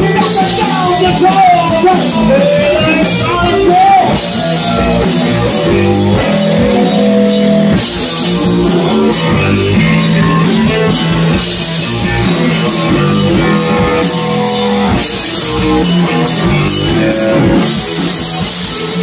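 A rock band playing live and loud: electric guitars and a drum kit pounding out a fast, steady beat.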